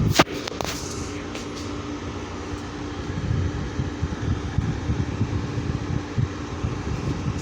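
Frigidaire and Honeywell dehumidifiers running together, a steady fan hum with a low droning tone. There is one sharp click just after the start.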